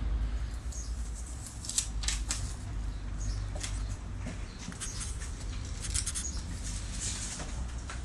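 Masking tape and its paper being peeled off an outboard motor's painted cowling: short crackles of tape coming unstuck and paper rustling, over a low steady rumble.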